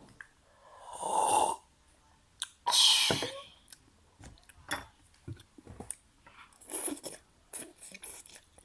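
A person eating: chewing with many small wet clicks, broken by two loud breathy bursts, about one second and three seconds in.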